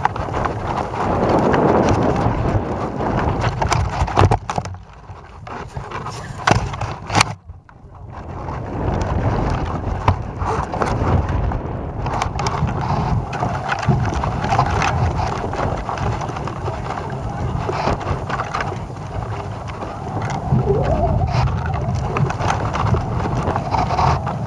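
Wind buffeting the microphone of a camera hanging from a tethered balloon: an uneven low rumble that rises and falls, with a few sharp knocks about four to seven seconds in.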